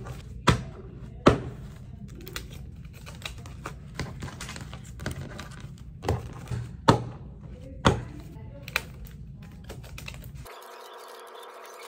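Paper banknotes handled on a tabletop: rustling and flicking of bills with several sharp thumps as stacks are set or tapped down. Near the end it cuts abruptly to a faint steady hum.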